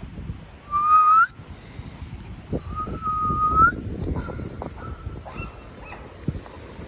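A person whistles twice, each a steady high note that slides up at the end: a short whistle about a second in and a longer one about three seconds in. Low rustling noise runs underneath.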